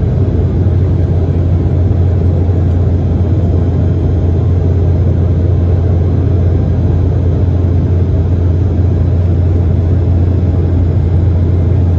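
Embraer 195 airliner's cabin noise in the climb after take-off: the GE CF34-10E turbofan engines and the airflow past the fuselage make a loud, steady low drone, heavy in the bass, heard from a seat over the wing.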